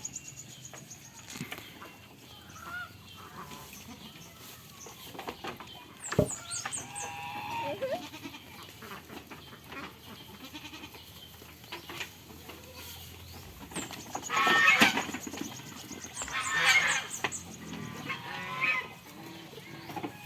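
Goats bleating on and off, several calls, the loudest two coming about two-thirds of the way through. A sharp knock sounds about six seconds in.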